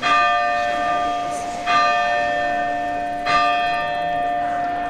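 A large tower bell struck three times, slowly, about a second and a half apart. Each stroke rings on, and a low hum lingers under the next.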